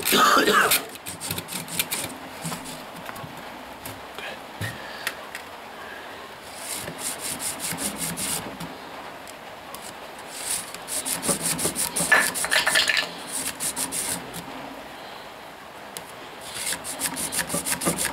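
A twisted metal rod worked back and forth inside the clogged tubes of a Golf 3 heater core, scraping out the deposits in quick rasping strokes. The strokes come in three runs of a couple of seconds each, with quieter scraping between them.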